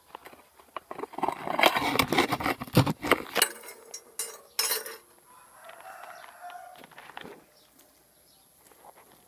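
A rooster crowing, with loud rustling and knocking in the first few seconds and a quieter call about halfway through.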